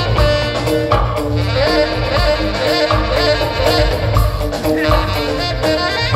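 Live rock band playing an instrumental passage, with saxophone, guitars, keyboards, bass and drums, heard through the venue's PA from the audience.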